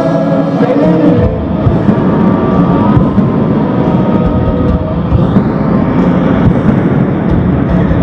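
Rock band playing at full volume through a stadium PA, heard from the crowd and distorted on a phone microphone: a held chord breaks about a second in into the full band crashing in with drums and distorted guitars.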